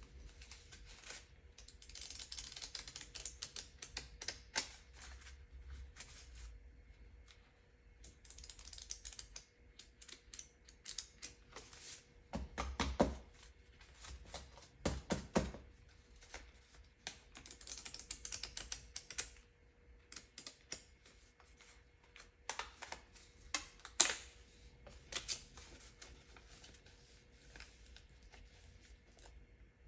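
A stack of crisp US $100 paper bills being flicked through and counted by hand: rapid papery clicks and rustling, with a few louder snaps of the notes partway through.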